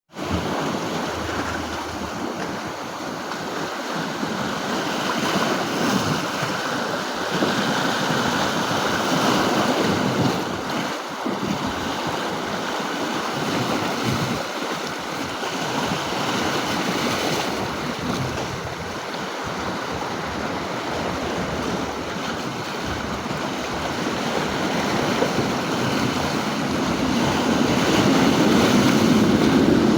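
Sea surf washing in steadily, with wind buffeting the microphone; it grows louder near the end.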